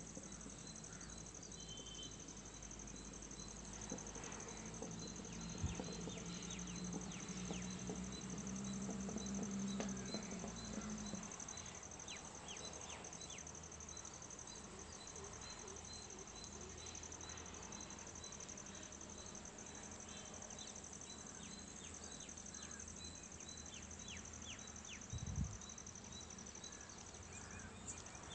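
Steady high-pitched insect trill with short falling bird chirps now and then. A low hum rises and dies away in the first third, and a single thump comes near the end.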